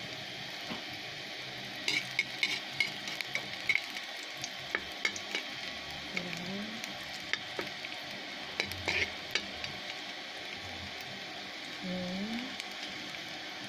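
Minced garlic sizzling in a little cooking oil in a steel wok, a steady hiss broken by many sharp little crackles and ticks, most of them in the middle seconds, as a spatula stirs it.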